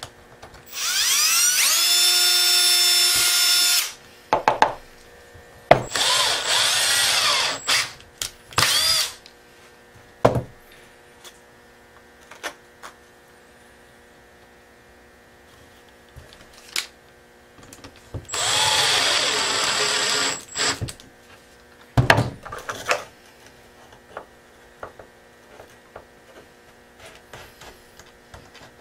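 Cordless drill drilling into small pieces of eastern red cedar in four runs, the longest about three seconds. Its motor whine rises as it spins up and then holds steady. Short knocks and clatter of the wood being handled fall between the runs.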